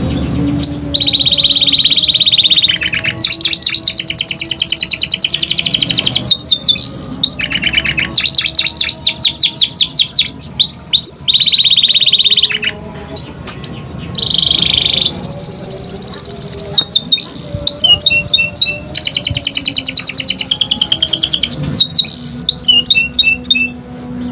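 Canary singing a long, varied song: fast rolling trills of rapidly repeated notes alternate with held high whistled notes, broken by short pauses.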